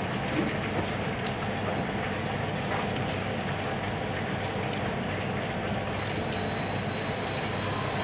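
Steady machine-like drone with a low hum, with a few faint ticks; a high, steady whine joins about six seconds in.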